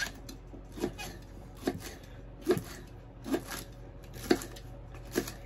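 Kitchen knife slicing wild onion stalks on a bamboo cutting board: the blade knocks against the board about once a second, seven times.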